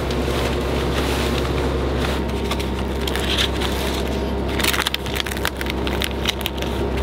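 Lightweight nylon spinnaker cloth crinkling and rustling as it is handled and smoothed flat for patching with repair tape, with sharper crackles of the fabric about four to five seconds in, over a steady low drone.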